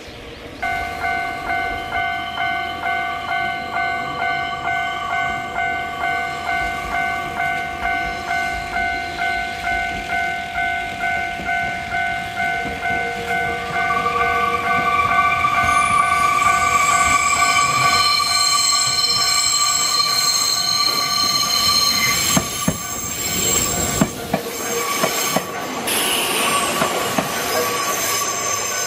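Railway level-crossing warning bell starting up and ringing steadily at about two dings a second. From about halfway an electric train's wheels squeal on the curve as it runs in, growing louder, with wheels clattering over rail joints as it passes close near the end.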